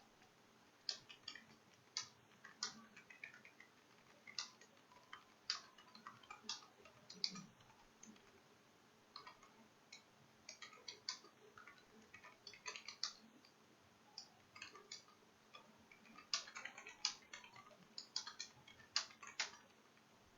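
Computer keyboard keys being typed on: faint, irregular clicking in short runs with brief pauses, quietest about eight seconds in and again around fourteen to sixteen seconds in.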